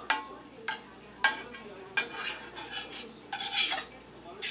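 Metal utensil scraping and clinking against a stainless steel frying pan as food is stirred: a series of sharp, uneven strokes, with one longer scrape about three and a half seconds in.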